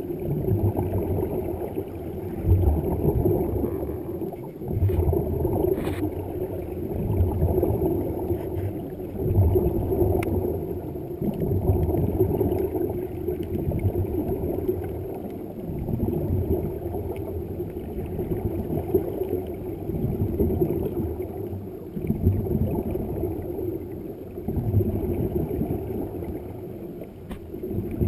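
Muffled underwater rushing and gurgling of air bubbles escaping from a reef-walk diving helmet, swelling and fading about every two seconds.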